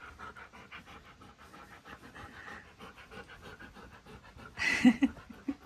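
Husky-malamute cross panting quickly and rhythmically, with a short, louder noise a little before the end.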